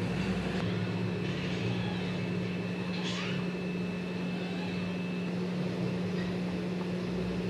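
A steady low mechanical hum, like a motor or fan running.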